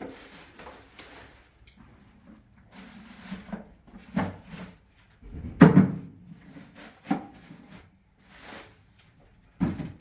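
A series of knocks and thumps with short scraping noises between them, the loudest thump a little past halfway through.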